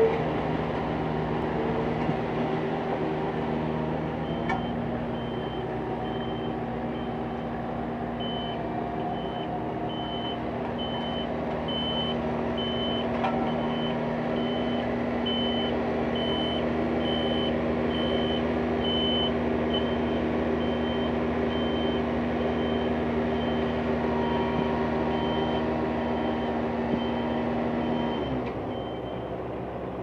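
Heavy construction equipment engine running steadily, with a reversing alarm beeping about once a second from a few seconds in. Near the end the beeping stops, the engine note falls away and the sound gets quieter.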